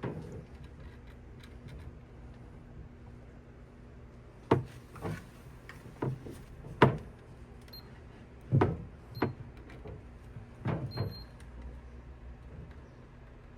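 A run of irregular sharp knocks and clicks, about eight of them, some in quick pairs, like equipment being handled against a wall or cabinet, with a few faint short high beeps among them.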